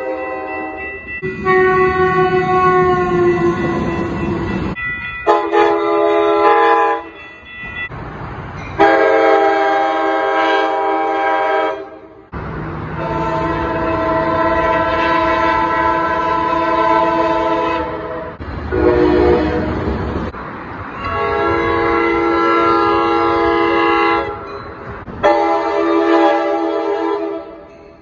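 Locomotive air horns sounding long, steady chords in a string of about eight short clips spliced together, each cut off abruptly, with train rumble beneath some of them.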